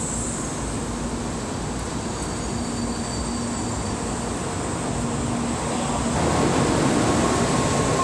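N700-series Shinkansen bullet train running along the station platform, its steady rumble and hum growing louder about six seconds in.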